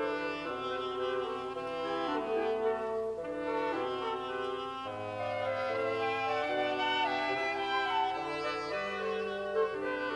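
Wind quintet of flute, oboe, clarinet, French horn and bassoon playing in several parts, held chords moving from note to note every half second or so.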